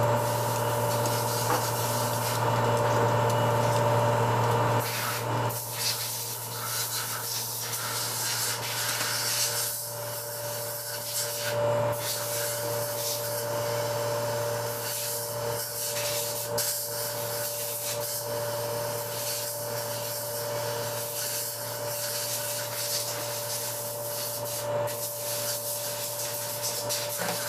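Hand tools and parts being handled on an automatic transaxle's aluminium valve body: a ratchet turning bolts, with scraping and rubbing as parts are fitted. Under it runs a steady machine hum with a few fixed tones.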